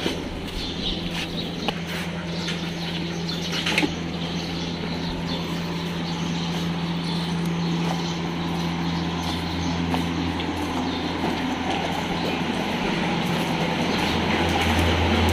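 Evaporative air cooler's fan running with a steady low hum, growing louder near the end. A couple of sharp taps in the first four seconds.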